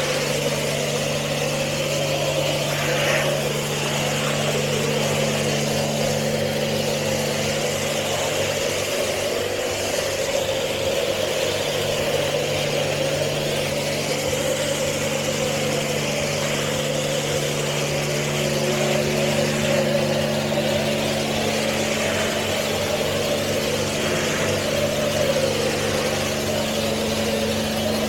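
Automatic car wash running, heard from inside the car: a steady mechanical hum under a continuous rushing wash of water, with no sudden breaks.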